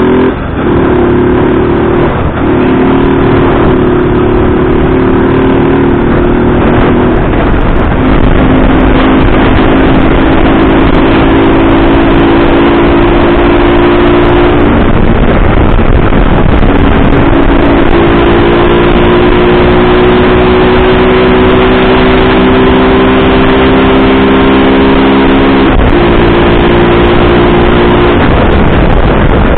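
Honda CG 160 Fan single-cylinder four-stroke engine running on the road, breathing through a sport air filter. Its note steps in pitch several times as the rider works through the gears, with heavy wind noise on the microphone throughout.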